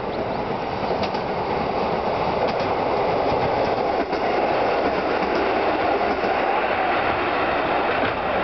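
Two-car KiHa 125 diesel railcar passing close by at speed: a steady rumble of the engine and wheels on the rails, with a few sharp clicks as the wheels cross rail joints.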